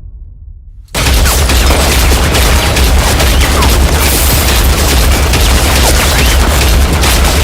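Heavy automatic gunfire starts abruptly about a second in and runs on as a dense, continuous barrage of rapid shots with deep booms underneath.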